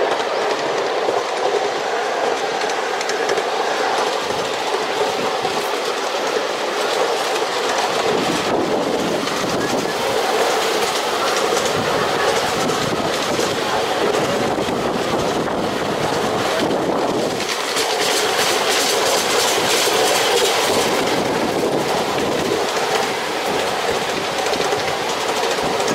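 Ride-on miniature railway train running along its track, heard from aboard: a steady running noise from the small wheels on the rails, with light clicks over the rail joints.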